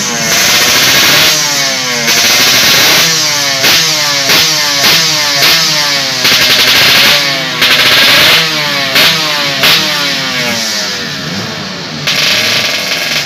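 Race-tuned Yamaha RX-King two-stroke single-cylinder engine, bored to 140cc, revved in quick repeated throttle blips, each rising sharply in pitch and falling back, while it is being set up. About ten seconds in the blipping stops and it runs on more steadily.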